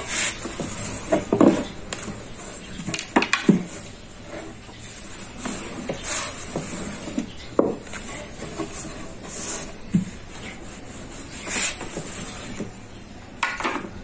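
Long thin wooden rolling pin (oklava) working a thin sheet of yufka dough on a wooden board: irregular knocks and thuds of the pin on the board, with a few short swishes as the dough sheet is lifted on the pin and spread out again.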